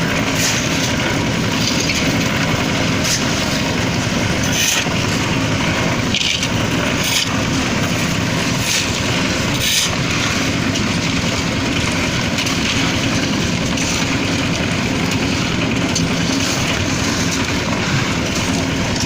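Concrete mixer's engine running steadily under load, with a few brief clatters in the first half.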